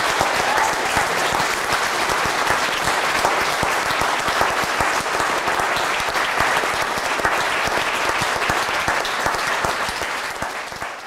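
A crowd applauding steadily, dying away near the end.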